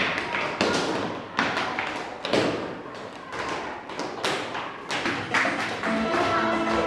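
A series of percussive thumps and taps, roughly one a second and unevenly spaced, with pitched instrument notes coming in near the end.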